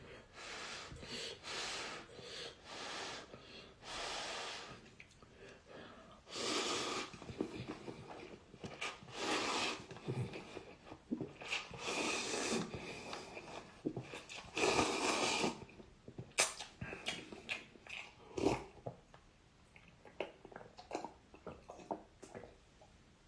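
Instant noodles being slurped, a run of noisy sucking slurps each lasting about a second, followed by a few short clicks near the end.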